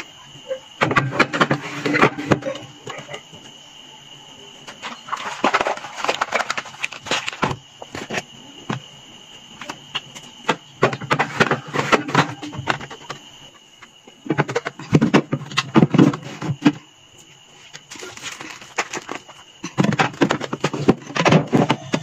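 Plastic drink bottles and boxed drinks being set down and shuffled on mini refrigerator shelves and door bins: clusters of plastic knocks, taps and crinkling, in several short spells with pauses between.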